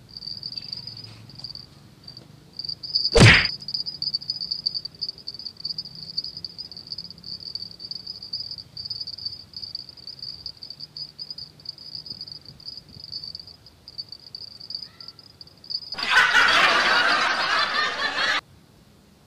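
High-pitched insect chirring, steady with a fluttering pulse. A single sharp, loud click comes about three seconds in, and near the end a loud rush of noise lasts about two seconds and cuts off suddenly.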